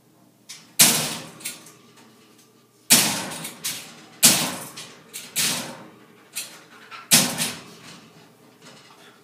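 Metal top panel of a wire dog crate banging down: four loud bangs, each followed by a shorter rattle, as a Siberian husky shoves it up with his head and it falls back, its zip ties chewed through.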